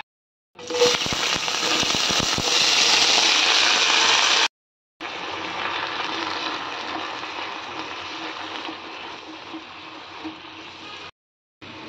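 Purslane leaves sizzling in hot oil in a pan. A loud burst of sizzling starts about half a second in as they go into the oil, then after a brief break it settles to a steadier, quieter sizzle that slowly fades while they are stirred.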